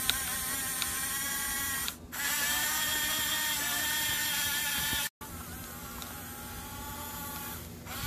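Electric drive motors and plastic gearboxes of a toy RC bulldozer whining steadily as it runs. The whine drops out briefly about two seconds in and comes back a little louder. It breaks off about five seconds in and goes on more quietly.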